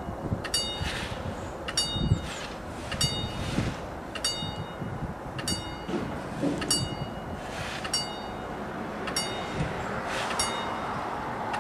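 Level-crossing warning bell ringing with a single bright ding a little more than once a second, over a low rumble.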